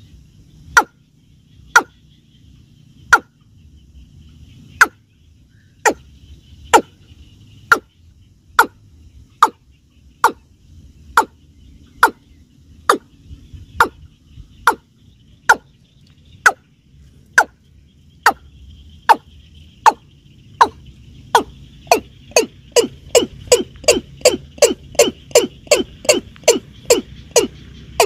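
Watercock calling: a series of short, sharp notes, each dropping quickly in pitch, at about one a second, quickening to about three a second in the last few seconds.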